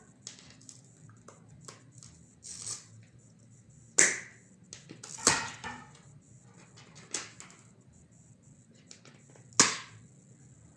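Pliers working a broken plastic arrow nock off the shaft: scattered sharp cracks and clicks, the loudest about four seconds in, just past five seconds, and near the end, with lighter ticks between.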